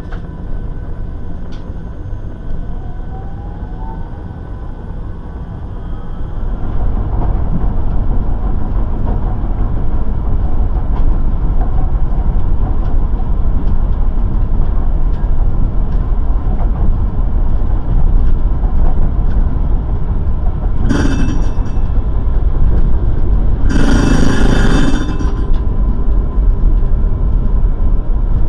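Tram running along its rails, heard from the driver's cab: a steady rumble that grows louder about six seconds in. Near the end, two bursts of a ringing warning signal sound, the second longer.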